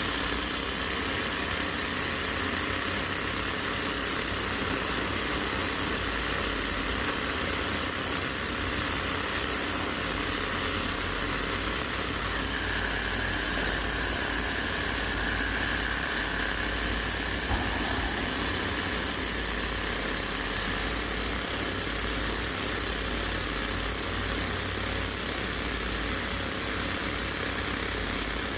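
Komatsu PC210LC excavator's diesel engine running steadily, with a higher whine coming up more strongly for several seconds past the middle and a single short knock about two-thirds of the way through.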